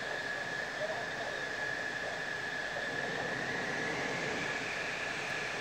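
Mitsubishi F-2 fighters' F110 turbofan engines idling together: a steady rushing noise with a high, even whine.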